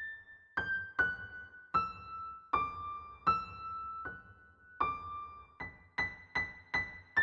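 Background music: a simple melody played one note at a time on a piano-like keyboard, each note struck and left to ring out, the notes coming faster near the end.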